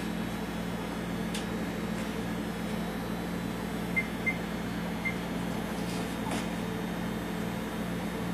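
Three short electronic beeps from the keypad of a countertop microwave oven as its buttons are pressed to set a timer: two quick beeps about four seconds in and a third about a second later, over a steady low hum.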